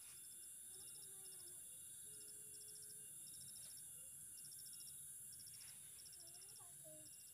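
Faint insect chorus: crickets chirping in short rapid trills, one after another every second or so, over a steady high-pitched hiss.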